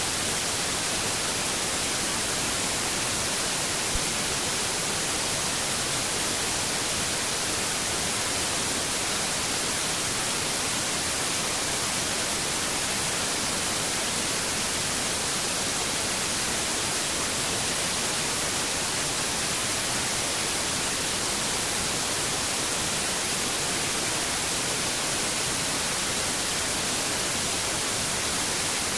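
Steady, unchanging hiss of static noise, strongest in the high end, with no distinct events in it.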